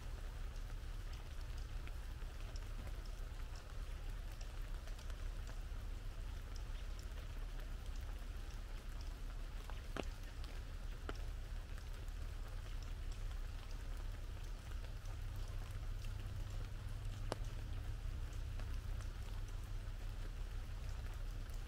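Steady light rain falling through forest, with scattered single drops tapping sharply on an umbrella overhead. A steady low rumble sits underneath.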